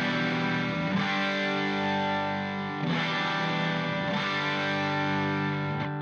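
Background music with distorted electric guitar chords changing every second or so.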